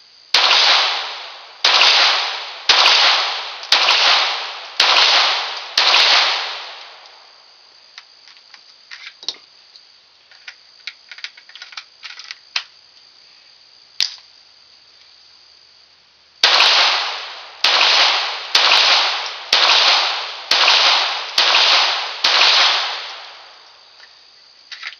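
Ruger Mark III 22/45 .22 LR semi-automatic pistol fired in two strings, six shots then seven, at about one shot a second, each with a short ringing tail. Between the strings come small clicks of the pistol being handled. The magazines feed without a stoppage this time.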